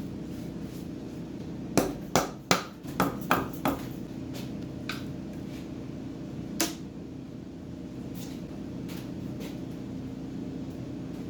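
Sharp metallic clinks and knocks of engine parts and tools being handled during a cylinder-head teardown on a Nissan Z24 engine. About seven come in quick succession, then a few scattered ones, over a steady low hum.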